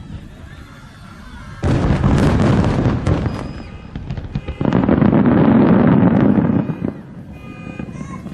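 Aerial fireworks shells bursting in a dense, rapid barrage, in two loud stretches. The first starts suddenly about a second and a half in. The second, louder one starts near the middle and cuts off sharply about a second before the end.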